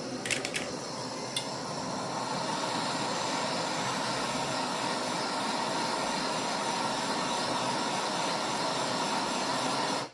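Steady rushing hiss of a heating tool played on a chainsaw's flywheel nut to soften red threadlocker, with a few sharp clicks in the first second or so; it cuts off suddenly at the end.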